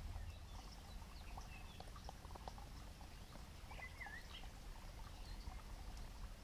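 Faint ticking and crackling of a small twig fire burning in a Solo Stove Titan wood-burning stove, over a low steady rumble. Birds chirp briefly now and then.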